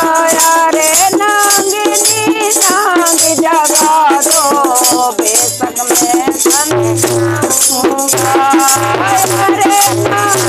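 Women singing a Hindi devotional folk song (bhajan) with a wavering melody, over rattle-like percussion and hand claps keeping a steady beat.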